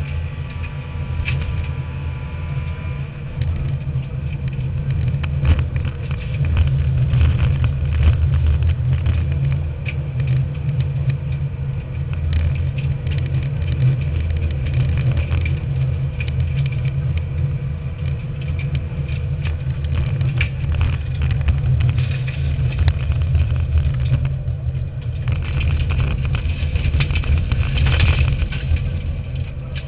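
Subaru Impreza N4 rally car's turbocharged flat-four running hard at speed, heard inside the cabin as a heavy low rumble, with frequent short knocks and rattles from the car's body.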